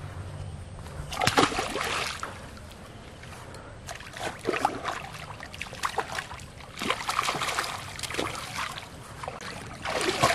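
A hooked sailfin catfish thrashing at the surface of a pond, throwing up water in bursts of splashing a couple of seconds apart, the loudest about a second in.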